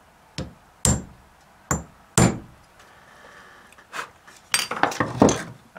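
Center punch being struck to mark a bolt-hole position on a cast-iron steam engine cylinder casting: a series of sharp metallic taps, a few spaced out at first and then several in quick succession near the end.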